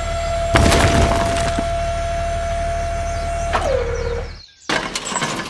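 A crash of breaking, splintering wood about half a second in, over a steady whine. The whine drops in pitch and dies away after about three and a half seconds, then two short clattering bursts follow.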